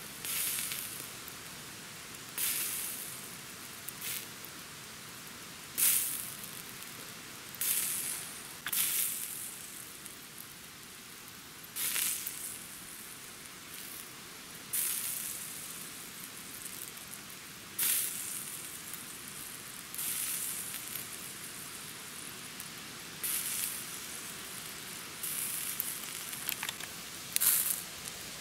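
Steak sizzling on a grill over coals: a steady hiss with about a dozen sharper hisses that flare up every couple of seconds and die away.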